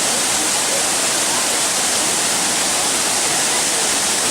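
Waterfall pouring steadily into its pool: a loud, even rush of falling water with a bright hiss.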